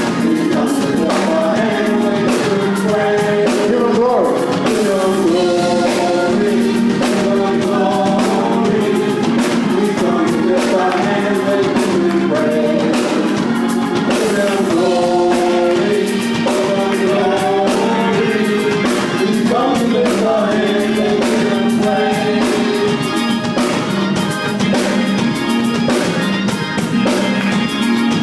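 Gospel praise and worship song: a choir singing with band accompaniment and a steady drum beat.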